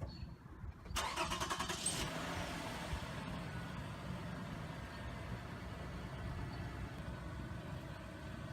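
Toyota Sienna minivan engine cranking for about a second and catching about a second in, then idling steadily.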